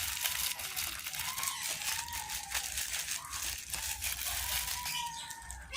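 Plastic packaging crinkling and rustling in irregular crackles as a parcel is unwrapped.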